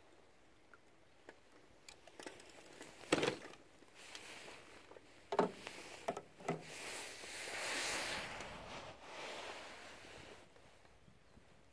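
A few sharp knocks as a float-fishing rod is grabbed from its rod rest and struck. Then a few seconds of splashing noise, loudest about eight seconds in, as a hooked crucian carp is drawn in and landed by hand.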